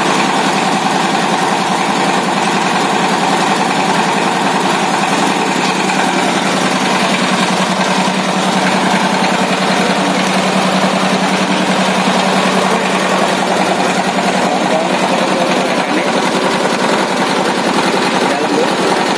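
Small horizontal single-cylinder diesel engine running steadily under load, driving a belt-driven chopper whose bladed rotor shreds fresh green leaves fed into its hopper. It makes a loud continuous mechanical running noise.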